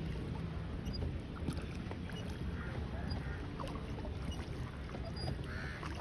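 Small boat moving on water: a steady low rumble of water and wind, with a few faint knocks.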